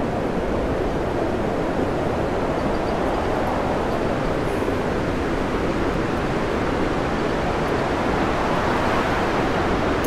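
Steady rushing noise of storm wind and heavy, breaking sea around a tanker plunging through big waves.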